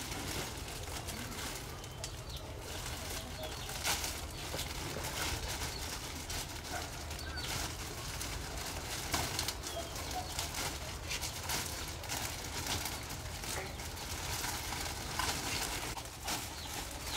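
Birds calling in the background, with frequent short rustles and light knocks of things being handled, over a steady low hum.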